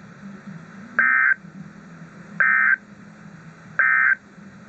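NOAA Weather Radio EAS end-of-message signal: three short, identical bursts of SAME digital data tones, about a second and a half apart, over a faint low radio hum. The three bursts mark the end of the alert message.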